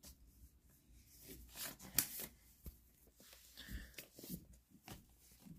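Faint rustling and light clicks of a vinyl record and its paper sleeves being handled.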